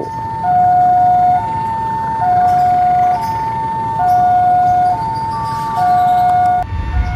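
Railway level-crossing warning alarm sounding: an electronic two-tone signal alternating between a higher and a lower tone, each held a little under a second. Near the end it cuts off and a low rumble takes over.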